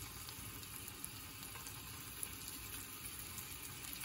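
Faint, steady sizzling of a skewered paneer seekh kebab cooking in oil on a grilling pan.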